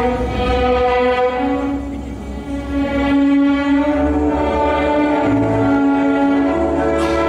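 Classical orchestral music with bowed strings playing long held notes.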